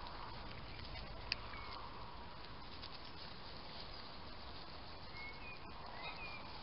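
Faint outdoor background hiss, with one sharp tick about a second in and a few short, high chirps near the end.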